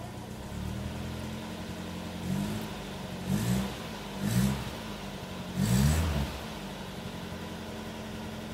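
1972 Toyota Carina's four-cylinder engine idling as it warms up after a cold start, blipped to a quick rev four times in a row, the last rev the loudest, then settling back to a steady idle.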